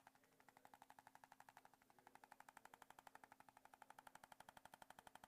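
Motorized handheld percussion massager working on the neck muscles: rapid, even tapping at about ten strokes a second over a steady motor hum.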